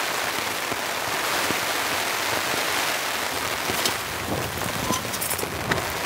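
Heavy rain falling steadily on the tent and the tarp stretched over it.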